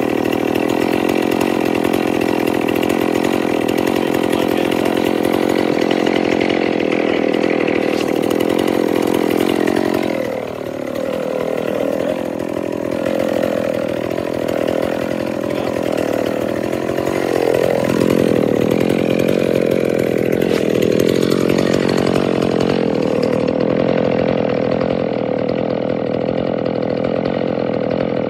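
McCulloch Pro Mac 610 two-stroke chainsaw engine running at high revs. About ten seconds in it drops back and wavers up and down for several seconds, then revs high again and settles a little lower near the end. This saw's clutch is slipping, which the owner says of this run.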